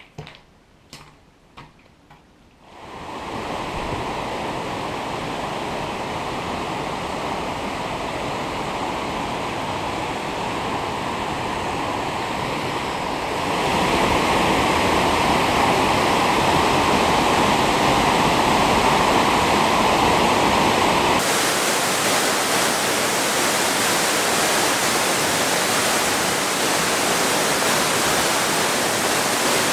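Running water, a steady rushing hiss that sets in about two and a half seconds in after a few faint clicks, gets louder near the middle and changes abruptly in tone about two-thirds through.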